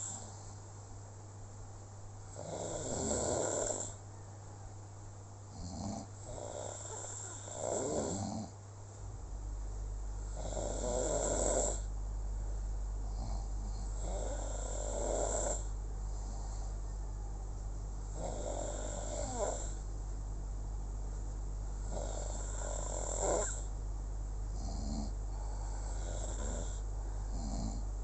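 Snoring in slow, regular breaths, one snore about every four seconds, over a steady low hum.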